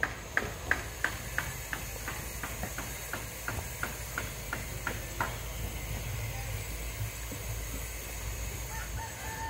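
Hammering at a steady pace of about three sharp blows a second, which stops about five seconds in. The hammer is plausibly that of roofers fastening corrugated metal roofing sheets.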